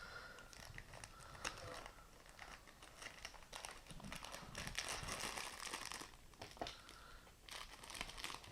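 Plastic biscuit packet crinkling and tearing as it is opened, faint, with the busiest crackling about halfway through.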